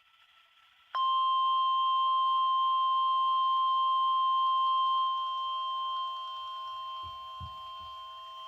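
NOAA Weather Radio 1050 Hz warning alarm tone: one steady, loud, high beep played through a weather radio receiver. It starts abruptly about a second in and holds, with its level stepping down twice in the second half. This tone is the alert that comes before a warning message, here a special marine warning.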